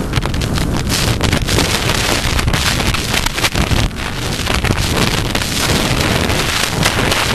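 Loud wind noise buffeting the microphone of a rider's helmet camera on a galloping horse, a dense hiss broken by many short gusts.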